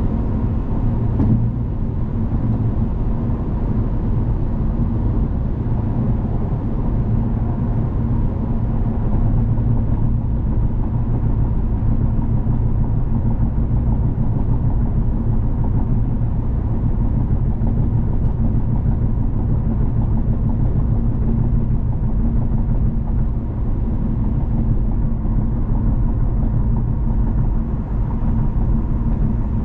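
Steady low rumble of a car being driven, with road and engine noise heard continuously.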